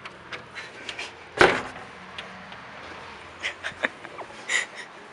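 Scattered knocks and clicks in a small room, with one loud thump about a second and a half in.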